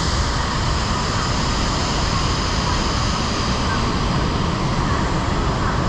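Large artificial waterfall, about 12 metres high and 400 metres wide, pouring steadily: a loud, even rush of falling water.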